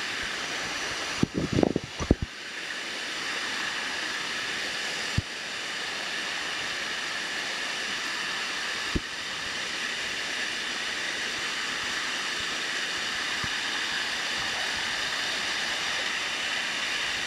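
Shallow water of Dunn's River Falls rushing steadily down travertine rock steps. A cluster of loud knocks comes a little over a second in, and single sharp knocks about five and nine seconds in.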